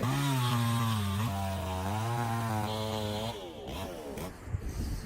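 A cow mooing: one long, low bellow of about three seconds, its pitch wavering, trailing off in a few falling notes.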